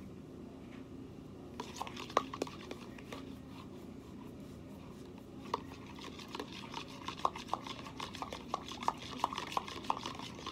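A utensil stirring a watery dish-soap-and-salt slime mix in a container, clinking against its sides: a short run of clinks early on, then a faster run of several clinks a second from about halfway through.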